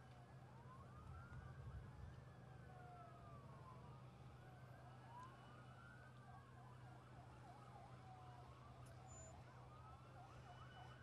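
Several faint emergency-vehicle sirens wailing at once, their slow rising and falling tones overlapping; in the last few seconds one switches to a fast yelp. A steady low hum runs underneath.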